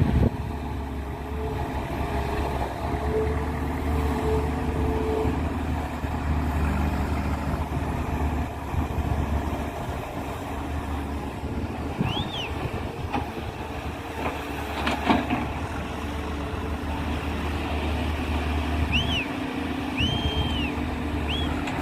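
Excavator diesel engine running steadily, with a knock or clank about two-thirds of the way through and a few short high chirps near the end.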